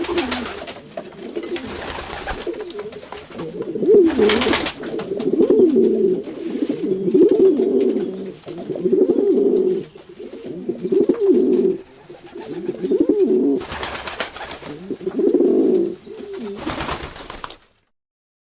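Several pigeons cooing continuously in overlapping low, warbling coos, sounding as if in a small enclosed space. Four brief rustling bursts cut through, at the start, about four seconds in, and twice near the end, and all sound stops suddenly shortly before the end.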